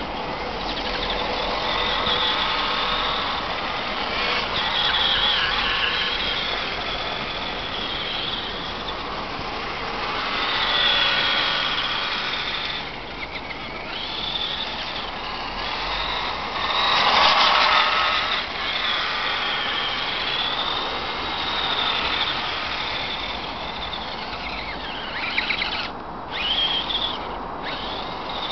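Electric motor and gear drivetrain of an Axial Wraith RC rock crawler whining, the pitch rising and falling as the throttle changes, over a steady hiss. A louder burst of noise comes about two-thirds of the way through.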